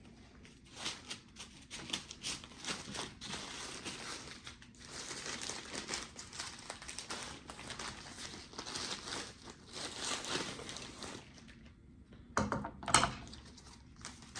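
Packaging crinkling and rustling in irregular bursts as a fishing rod is unwrapped by hand. After a short pause there is a louder burst of crinkling near the end.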